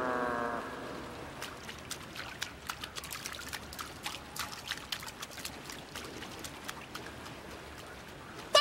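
Dripping and trickling water in a sewer tunnel, a low hiss with scattered sharp drips and small splashes. It begins as a descending musical sting fades out, and a sudden loud pitched cry cuts in right at the end.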